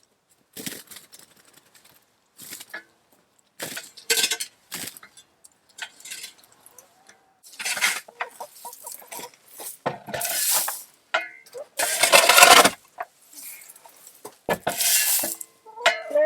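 Coop floor litter of sand, sawdust and hay being scraped and scooped out in a run of irregular strokes, the longest and loudest about two thirds of the way through.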